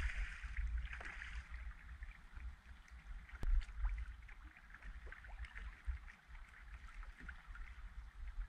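Water splashing as a hooked fish thrashes at the surface for about the first second, then softer water sloshing with low wind rumble on the microphone. A sharp click about three and a half seconds in, with a few fainter clicks.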